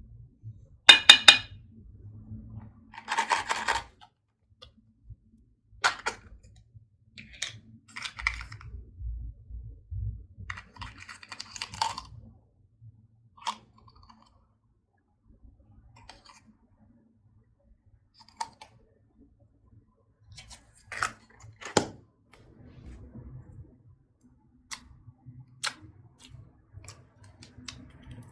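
Hands working slime and handling makeup: intermittent squishing, crackling and sharp clicks with short quiet gaps between them, the loudest bursts about a second in and again about three seconds in.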